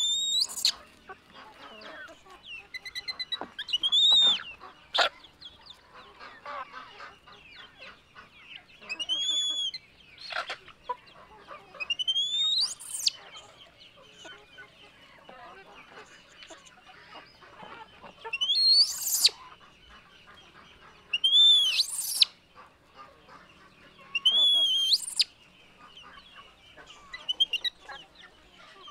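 Baby monkeys screaming: high-pitched squeals that rise and fall, one every few seconds, about eight in all, with quieter rustling between.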